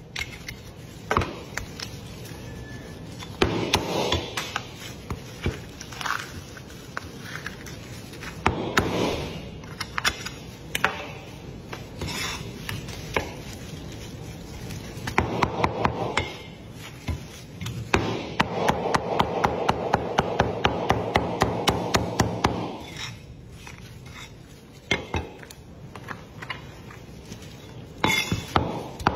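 Cleaver cutting braised poultry on a thick round wooden chopping block: the blade knocks on the wood, with quick runs of chops about halfway through, and the meat is rubbed and scraped across the board between cuts.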